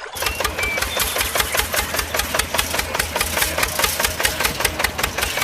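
Small engine running with a rapid, even chug, starting abruptly.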